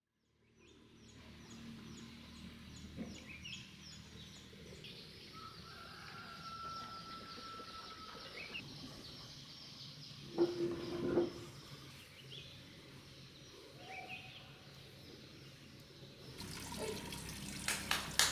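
Night-time countryside ambience: insects chirping in a quick regular rhythm, with a few animal calls, one held steadily for about three seconds. About two seconds before the end, water noise with sharp clicks comes in louder.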